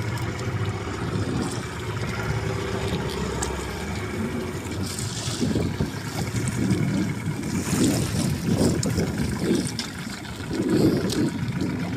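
Small wooden fishing boat at sea, its engine running low under the sound of choppy water splashing against the hull, with a few light knocks.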